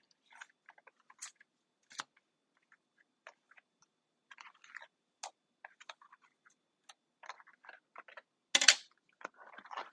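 Scattered small clicks, taps and crinkles of hands handling a phone and its packaging, with a brief louder rustle near the end.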